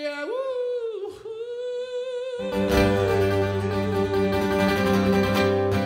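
A male singer holds a long sung note alone, sliding up to it near the start and sustaining it with vibrato. About two and a half seconds in, a strummed guitar chord with bass comes in and rings under the voice to close the song.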